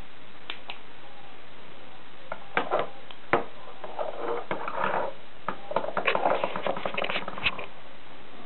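Handling of laser pointers on a tabletop: a couple of faint clicks, then a run of knocks, clicks and scraping as they are picked up, moved and set down.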